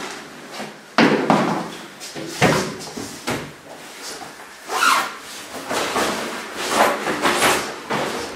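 A wardrobe door opens with a sharp knock about a second in. Then coats and shoes rustle and bump as someone rummages inside it, with several more sudden knocks.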